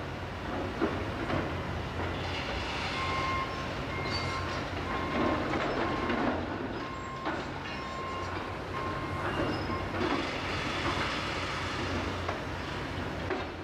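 Demolition excavator's diesel engine running under load while its hydraulic crusher jaws crunch and break up a concrete bridge deck, with concrete and debris grinding and falling. A beeping alarm sounds repeatedly from about three seconds in until about ten seconds in.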